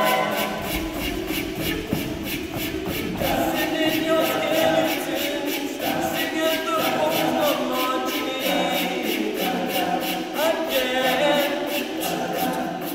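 A mixed male and female a cappella group singing in harmony, over a steady vocal-percussion beat of about four ticks a second.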